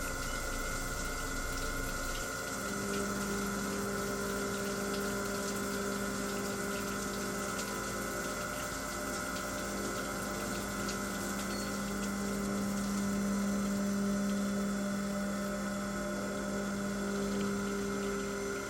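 Old CNC milling machine running its program with coolant flowing: a steady machine hum with a rushing of liquid, joined about two and a half seconds in by a steady low tone that holds on.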